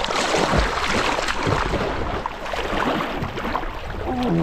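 Fast river current rushing and splashing close around the microphone.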